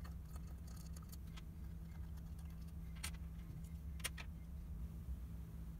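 A few faint metallic clicks and ticks as a hex screwdriver works small screws out of a metal amplifier case, over a low steady hum.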